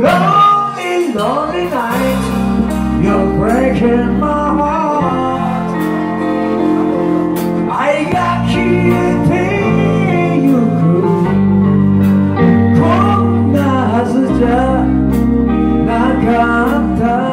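A live rock band playing a song on electric guitars, bass guitar and drum kit, with a bending lead melody over the chords.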